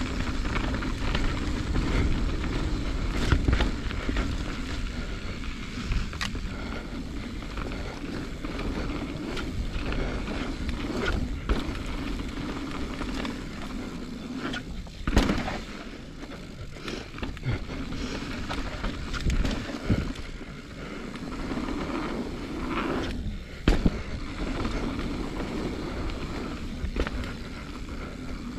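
Mountain bike descending a rough dirt trail: a steady rushing of tyre and air noise with rattling, and several sharp knocks as the bike hits bumps and rocks, the loudest about halfway through and again later on.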